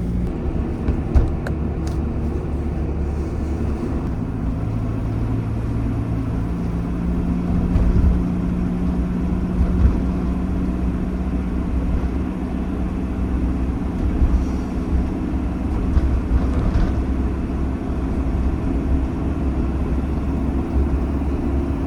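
Campervan engine and road noise while driving, steady, with the engine note shifting higher about six seconds in and a few small knocks from the road.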